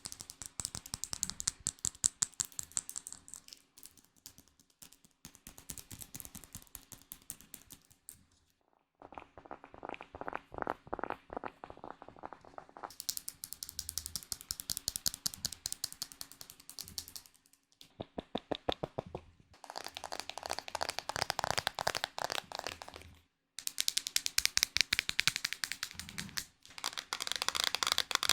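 Close-miked ASMR trigger sounds: rapid, crisp taps and clicks, changing to a new trigger every few seconds after short breaks.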